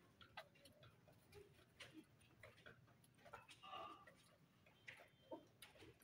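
Faint, irregular ticks and taps of golden buff chickens pecking at grain on a concrete floor.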